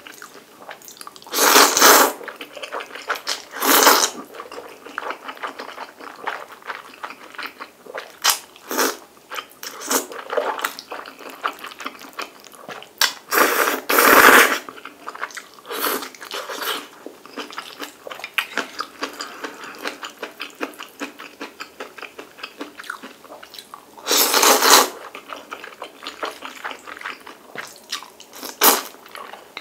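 A person eating instant noodles: several loud slurps of about a second each, with wet chewing and smacking in between.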